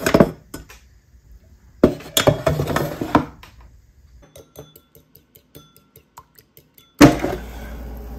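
Air fryer basket clattering as it is handled, at the start and again about two seconds in, followed by a run of faint, even clicks about five a second. About a second before the end the air fryer's fan starts with a sudden whoosh and runs steadily.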